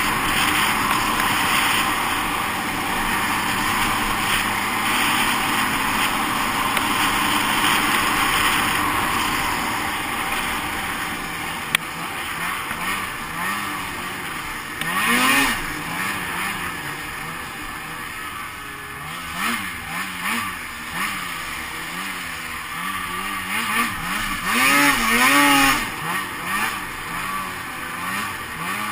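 Two-stroke snowmobile engine running at speed under a steady rush of noise, then being throttled on and off, its pitch rising and falling over and over, with the loudest revs about halfway through and again near the end. A single sharp click comes a little before the halfway point.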